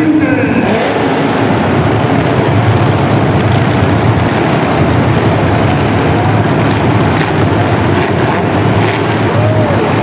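Engines of demolition derby cars running and revving together in a loud, continuous din, with pitch sweeping up and down near the start and again near the end.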